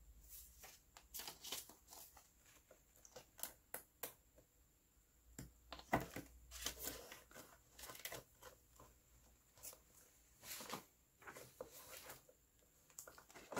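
Hands handling clear plastic cash envelopes in a ring binder and polymer banknotes: faint rustling and crinkling with scattered light taps and clicks.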